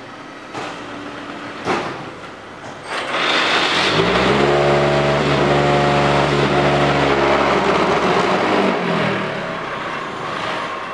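QTY automatic hydraulic concrete block machine working through its cycle: a few knocks, then from about three seconds in a loud rushing clatter joined by a deep steady hum for about five seconds, the vibration that compacts the concrete in the mould, fading away near the end.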